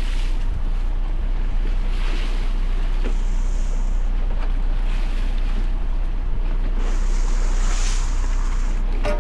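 Small boat running on the water: a steady low motor drone with wind on the microphone and a few brief swells of hissing water.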